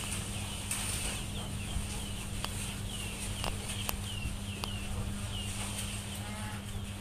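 Small birds chirping, a run of short high chirps about two a second, with a few sharp clicks in the middle, over a steady low hum.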